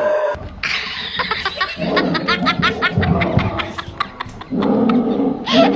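A dog barking and growling, with a quick run of sharp barks in the middle and a longer low growl near the end.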